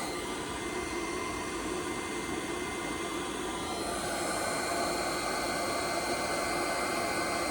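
Cooling fan of a 1300-watt handheld induction heater running steadily, a hiss with a thin high whine; a second, higher whine comes in about halfway through.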